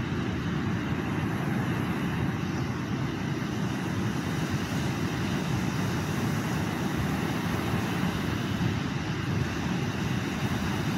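Steady low rumbling noise that does not change throughout.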